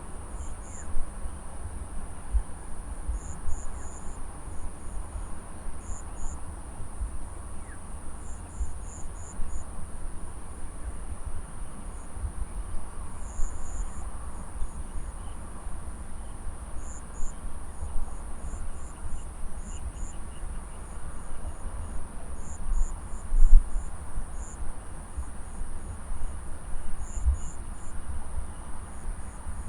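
Field insects shrilling: a steady, very high-pitched drone with short clusters of higher chirps breaking in every second or two. A low rumble runs beneath, with one louder bump about 23 seconds in.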